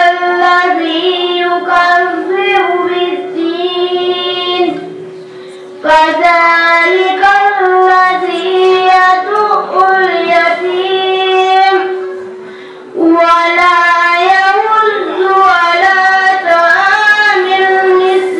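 A child's high voice chanting a melodic recitation in three long phrases, with short breaks for breath between them.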